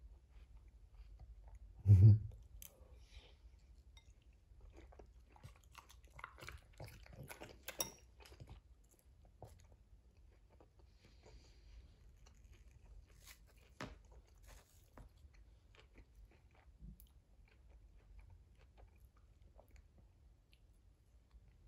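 A dog chewing and crunching food it has been fed, with scattered small clicks, and one loud low thump about two seconds in.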